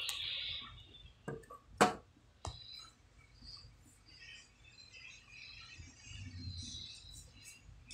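A few sharp clicks and knocks, the loudest just under two seconds in, over faint high chirping.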